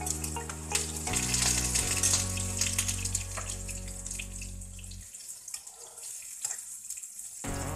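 Chopped onions sizzling in hot oil in a non-stick frying pan, stirred with a metal slotted spoon. Background music with steady low notes plays underneath, cutting out about five seconds in and returning near the end.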